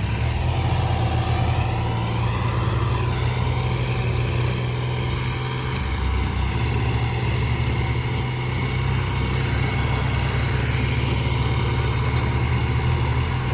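Diesel tractor engine running steadily as a tractor works mired in deep mud.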